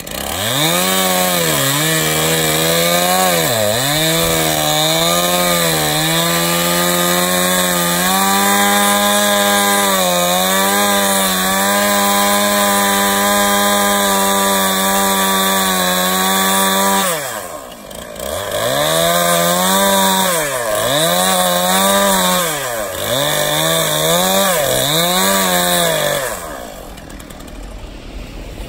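Gas chainsaw cutting into a tree trunk, its engine revving up and down several times, then holding steady at full throttle through a long stretch of the cut. After that it dips and picks up again four or five times before falling away near the end.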